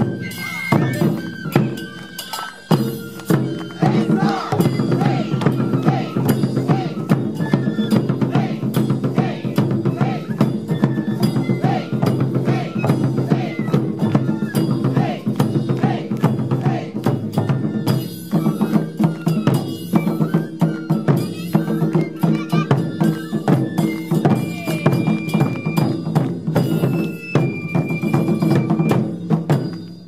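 Japanese taiko ensemble playing a fast, driving rhythm on many drums, with sharp stick strikes, then stopping together suddenly at the close of the piece.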